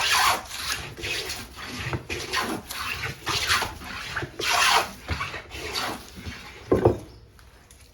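Antique wooden jack plane (New York Tool Company) being pushed over a board in a run of quick strokes, one or two a second, each a rasping hiss of the iron taking a shaving. There is a single heavier knock near the end, then the strokes stop. The iron has been set a little deeper to get a better shaving.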